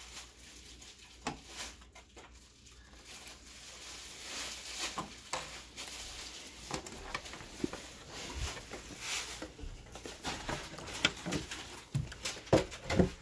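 Scattered light clicks, taps and rubbing from hands working the plastic body shell of an RC car and lifting it off its chassis. The sounds are sparse at first, get busier after a few seconds, and the sharpest clicks come near the end.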